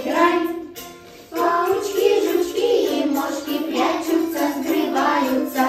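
Singing of a children's song by a group of voices, small children among them, with a short break about a second in.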